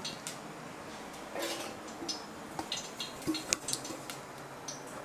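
Light metallic clicks and taps of a small stainless-steel lidded container being handled and its lid worked, scattered irregularly and coming more often in the second half.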